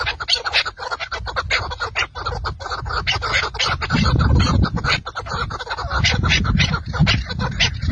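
Partridges calling in rapid runs of short clucks, several a second, over a low rumble that grows louder about four seconds in.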